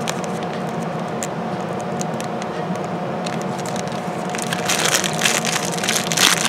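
Small resealable plastic zip bag being handled and worked open, its thin plastic crinkling and crackling, with sparse crackles at first and dense crinkling over the last two seconds.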